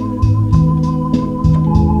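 Organ music: sustained chords over a bass line that steps to a new note every half second or so, with a light steady tick in the treble.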